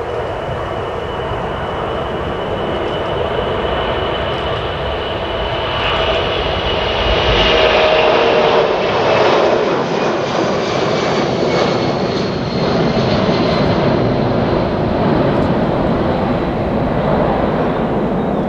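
Boeing C-17 Globemaster III's four Pratt & Whitney F117 turbofans at takeoff power through the takeoff roll and climb-out. It grows louder to a peak about eight seconds in, its high whine dropping in pitch as the jet passes.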